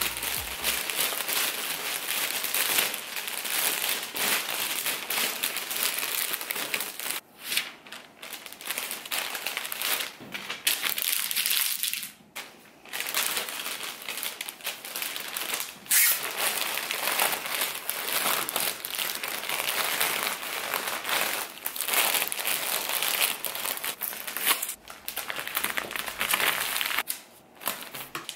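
Clear plastic bag and poly mailer crinkling as a sweatshirt is stuffed into the bag and the mailer is pressed shut, in long stretches with a few short pauses.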